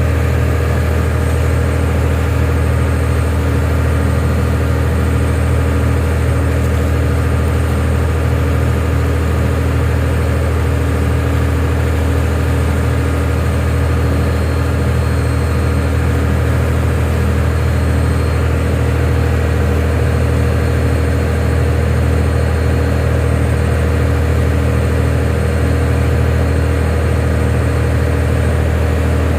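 Heavy engine machinery running steadily: a constant low drone with a faint steady hum over it, holding the same level throughout.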